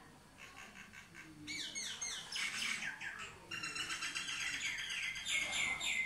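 Common mynas calling: rapid runs of short notes, each falling in pitch, faint at first and louder from about a second and a half in.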